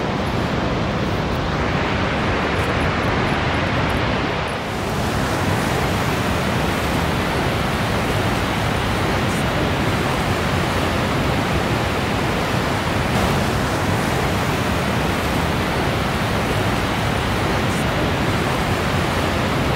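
Horseshoe Falls at Niagara rushing steadily: a loud, even noise of falling water, heard close to the brink.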